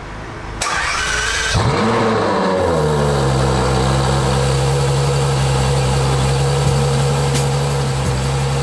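Ferrari F12 TDF's 6.3-litre V12 starting up. About half a second in the starter cranks for about a second, then the engine catches with a flare of revs that rises and falls back. It settles into a steady idle within about a second.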